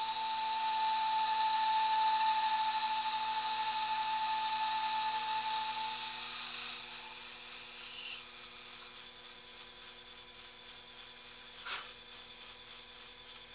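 Small metal lathe boring a part: a steady hiss of the cut with a high whine over it. About seven seconds in the cut stops and the lathe runs on with a quieter hum, with a single click near the end.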